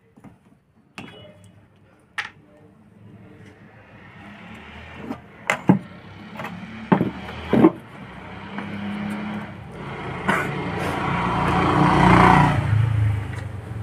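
A low motor noise swells slowly to a peak near the end, then drops away. Several sharp clicks and knocks sound over it in the first half.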